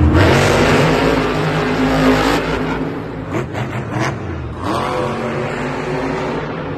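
Monster trucks' supercharged V8 engines revving, pitch rising and falling, loudest for the first two seconds or so, then rising again in a fresh rev near five seconds in.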